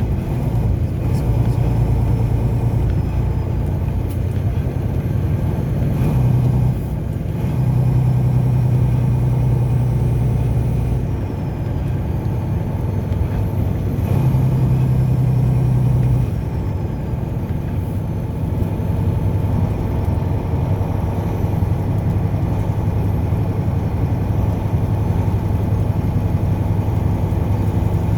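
Car driving on the road: a steady low engine drone over tyre and road noise. The drone swells for a few seconds twice, about seven and fourteen seconds in, then settles a little lower in pitch.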